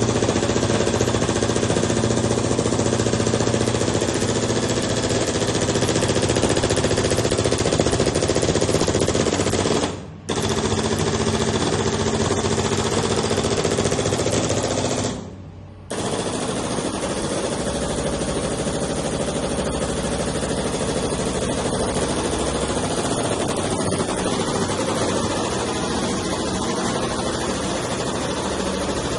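Three-head CNC carving router running, its spindles cutting with a dense, rapid rattling noise over a steady hum. The sound drops out briefly about ten seconds in and again around fifteen seconds in.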